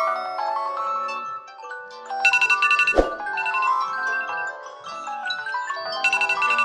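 Several smartphone alarm tones ringing at once, their chiming, marimba-like melodies overlapping in a clashing jumble, with a sharp thump about three seconds in.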